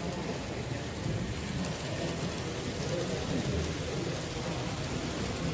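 Steady hubbub of a busy exhibition hall: many indistinct voices talking at once over an even rushing background noise.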